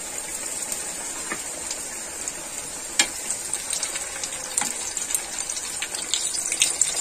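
Kachoris deep-frying in hot oil in a steel kadhai: a steady sizzle with crackling pops. A slotted spoon moves them in the oil and makes sharp clicks, the loudest about three seconds in.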